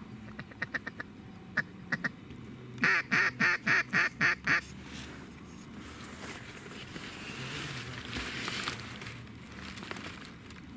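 Mallard quacking: a few quick short clucks, then a run of seven loud quacks at about four a second. A soft rushing sound builds and fades in the second half.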